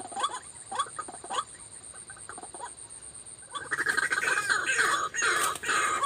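White-breasted waterhen calls: short rising notes repeated about twice a second, then from about three and a half seconds in a much louder, dense clamour of calling.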